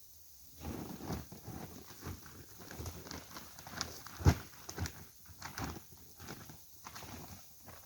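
Irregular rustling and crackling of dry brush and branches, with scattered knocks of wood and one sharp thud about four seconds in.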